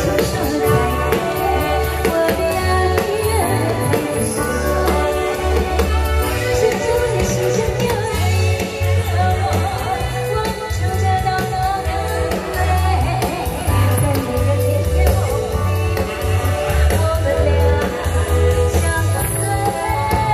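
A woman singing a song into a handheld microphone over a loud backing track with a steady pulsing bass beat, played through a PA system.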